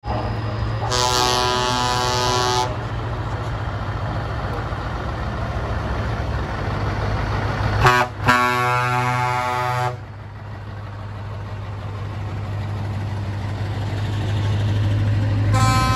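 Scania V8 truck engines running with a steady low rumble as the trucks pull slowly past. Over it, truck horn blasts: one of about a second and a half shortly after the start, a short toot then a blast of about two seconds around the middle, and more near the end.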